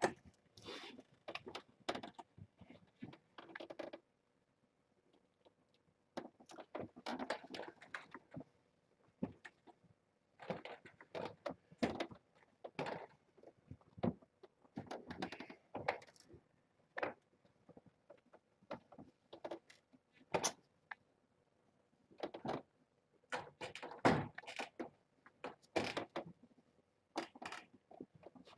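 Irregular handling noises: rustling, knocks and light clinks coming in clusters with short gaps, as things are moved about inside a small enclosure.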